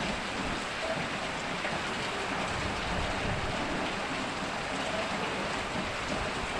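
Heavy rain falling steadily, an even, unbroken hiss.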